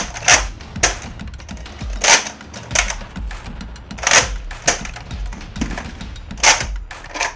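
Toy guns clicking: a string of sharp plastic clicks at irregular intervals, roughly one or two a second.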